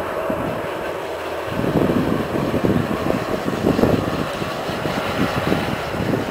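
Wind buffeting the microphone in rapid, irregular low thumps from about a second and a half in, over the low steady hum of distant rail maintenance machines' engines.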